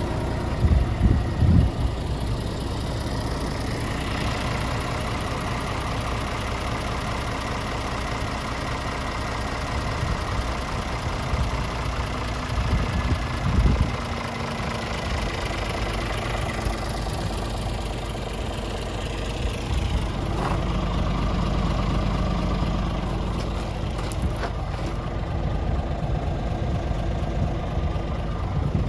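Scania R450 tractor unit's 13-litre inline-six diesel idling steadily, with a few brief low thumps.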